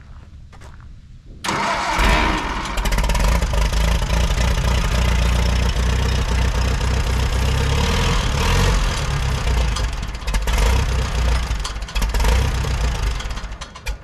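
1952 Case VAC tractor's four-cylinder engine being cranked on the starter, kicking in suddenly about a second and a half in and running on steadily, then cutting off abruptly near the end.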